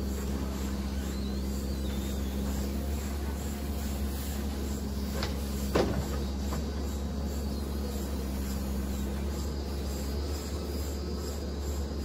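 JCB 4CX backhoe loader's diesel engine running steadily under load while the backhoe digs clay, with a few sharp knocks near the middle, the loudest about six seconds in.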